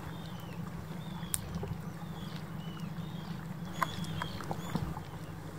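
Steady low hum of a boat's engine idling among ice floes, with seabirds giving short high cries that slide down in pitch, several in a row, and a few scattered sharp clicks.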